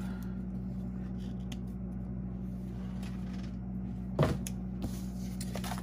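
Sheets of paper being handled at a sewing machine: faint rustles and a single sharper tap about four seconds in, over a steady low hum.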